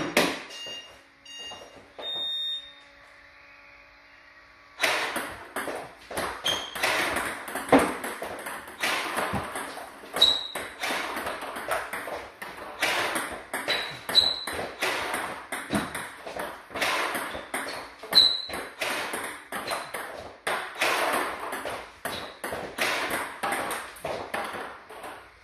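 Table tennis balls clicking sharply off a paddle faced with hard DHS Hurricane 2 Neo rubber and bouncing on the table, with the odd high ping. A few isolated clicks come first, then from about five seconds in a rapid run of hits and bounces during short touches and forehand flicks.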